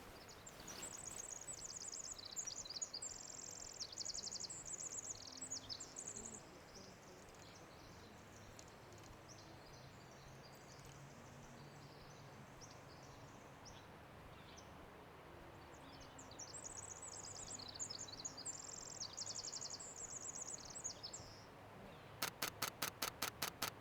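A wren singing two long, high songs made of rapid trills and buzzy phrases, each lasting several seconds, about ten seconds apart. Near the end, a camera shutter fires in a fast burst of about a dozen clicks.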